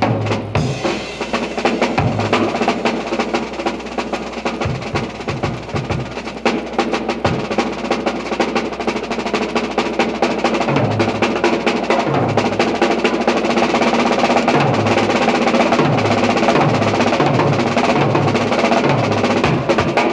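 High school band music from a 1965 LP recording, with prominent drums: snare drum and bass drum, with drum rolls. From about halfway, a low bass part plays in short repeated notes.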